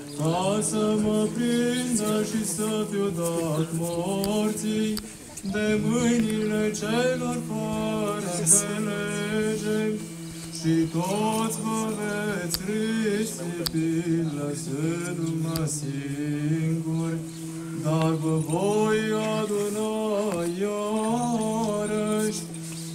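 Orthodox church chant: a hymn melody sung over a steady held drone note (ison), with short pauses between phrases.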